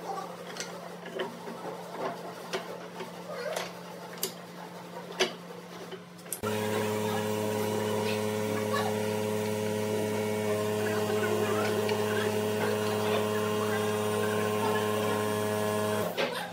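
Small pine spacer blocks and slats clicking and knocking on a wooden workbench as they are set in place. About six seconds in, a machine motor starts running with a loud steady hum, then stops suddenly near the end.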